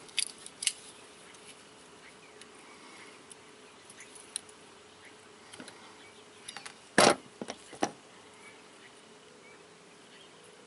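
Small metal parts of a power steering pressure hose fitting being handled by hand: light clicks near the start and a louder sharp clack about seven seconds in, followed by a smaller one, over a faint steady hum.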